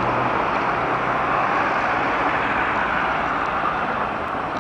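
Street traffic noise: a steady rush of passing road vehicles that slowly fades, with a faint engine hum in the first two seconds.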